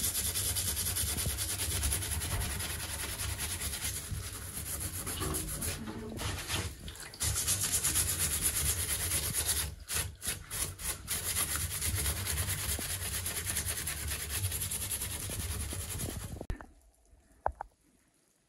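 A stiff brush scrubbing a wet moose skull, a steady rasping rub on bone that pauses briefly about six and ten seconds in and stops near the end.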